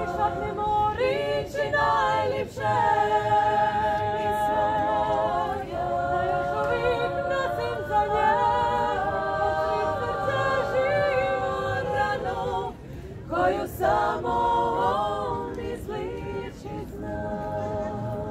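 Women's vocal ensemble singing a cappella in several-part harmony, holding long notes with vibrato, with brief pauses for breath about two and a half seconds in and again near thirteen seconds.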